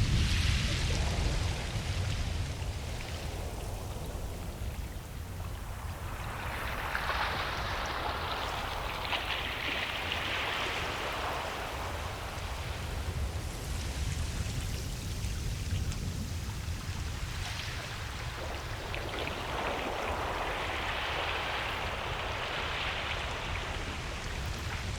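Ocean waves breaking and washing up a beach: a steady low surf rumble, with the hiss of a wave's wash swelling and fading twice, about seven seconds in and again about nineteen seconds in.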